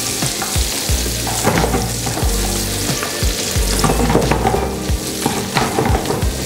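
Chicken trimmings and vegetables sizzling as they fry in butter and oil in a pan. A spatula stirs them throughout with repeated short scrapes against the pan.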